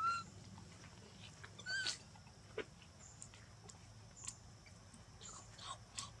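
Infant macaque giving two short, high squeaks, one right at the start and another about two seconds in, with scattered small clicks and rustles around them.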